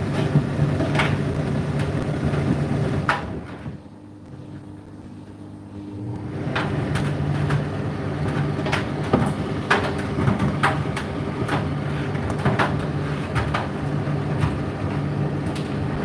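Indesit IDC8T3 condenser tumble dryer running, with a steady motor hum and irregular light knocks from the turning drum. About three and a half seconds in the drum stops for roughly three seconds and then starts again, as the drum pauses to change direction.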